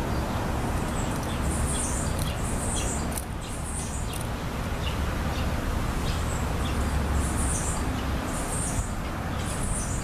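SpinYo fidget spinner being spun and handled by hand, with faint clicks from the spinner, over a steady low rumble. Short high chirps come in a few times.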